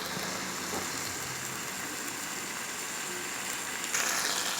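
Mushroom masala sizzling gently in oil in a pan, a steady hiss. About four seconds in it grows louder as stirring begins.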